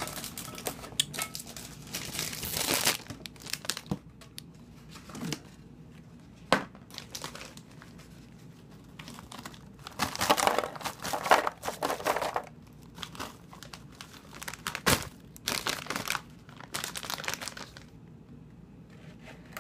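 Crinkling plastic snack bag, handled and shaken out over a bowl in several bursts of rustling, with a few sharp knocks.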